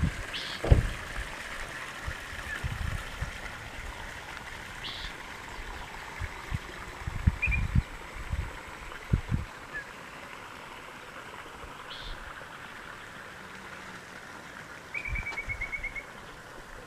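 Outdoor ambience: wind buffeting the microphone in irregular low thumps over a steady background hiss, with a few short high chirps and, near the end, a quick trill of about eight notes from an animal.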